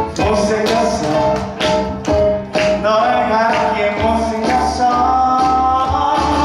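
A man singing a wedding song into a handheld microphone over a backing track with a steady beat, holding long notes in the second half.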